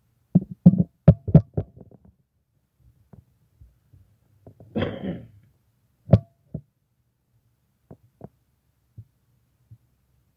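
Thumps and knocks of a handheld camera being handled: a quick cluster of about six in the first two seconds, a short rustle about five seconds in, two more knocks just after, then a few faint taps.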